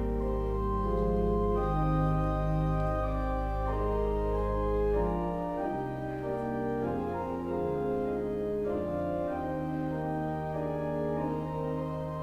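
Organ music: slow sustained chords moving from one to the next, the opening music of a worship service. A deep held bass note drops out about five seconds in.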